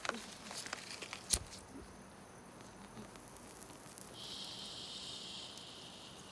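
Small clicks and one sharp click about a second in, then a lighter's flame hissing steadily for a couple of seconds as it is held to the tip of a cigarette.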